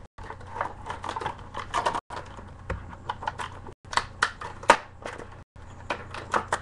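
Headphone retail packaging being handled and pulled apart: irregular clicks, taps and crinkles of plastic and cardboard, cut by a few brief dropouts in the audio.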